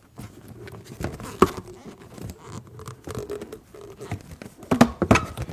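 Inflated latex balloons, a Qualatex Geo Blossom, a 5-inch round and a 260 twisting balloon, rubbing and squeaking against each other as they are tied together. The sound is irregular short squeaks and creaks, sharpest about a second and a half in and again near the end.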